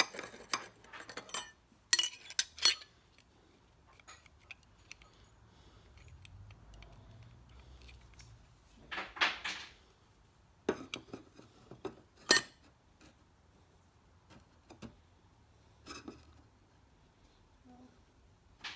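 Steel clutch parts clinking and clacking as the forward clutch piston of a John Deere 310D backhoe's reverser is handled and pressed into its clutch drum by hand. There are sharp metallic knocks about two seconds in, a short scrape near the middle and a few more clacks later.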